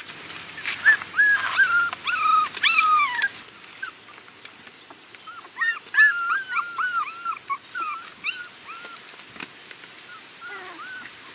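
Young puppies whimpering in strings of short, high-pitched cries, in two bouts, with a few fainter whines near the end.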